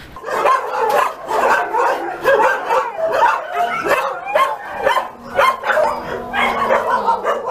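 Many shelter dogs barking and yipping at once in their kennel cages, the barks overlapping one another.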